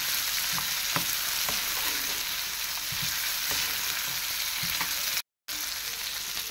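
Sliced onions sizzling steadily as they fry in oil in a pan, with a metal spoon stirring them and clicking against the pan now and then. The sound cuts out for a moment about five seconds in.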